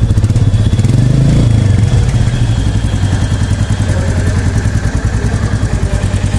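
A 350 cc single-cylinder motorcycle exhaust idling with an even, quick thump. About a second in, the throttle is blipped briefly and the note rises, then it drops back to idle.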